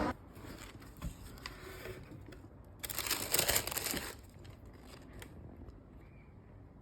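Quiet handling sounds: a few small clicks, then about a second of rustling near the middle, like paper or plastic being handled.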